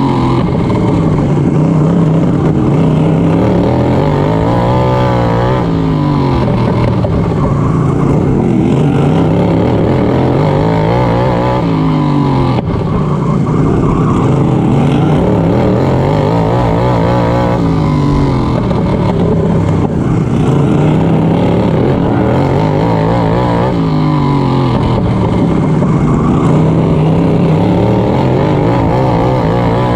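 Racing lawn mower engine at full race pace, revving up and dropping back over and over, its pitch rising and falling about every five seconds as it accelerates and eases off around the track.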